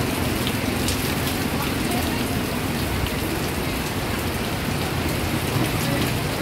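Heavy rain pouring down steadily, a dense, even patter with a few individual drops ticking through.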